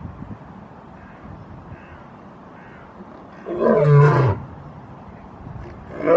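Male lion roaring: two loud calls, the first about three and a half seconds in and lasting about a second, the second starting near the end, each dropping to a lower pitch as it ends.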